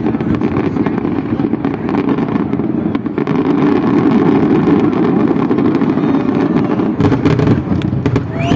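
Fireworks finale: a dense barrage of shell bursts merging into a continuous rumble, with sharper crackling from about seven seconds in.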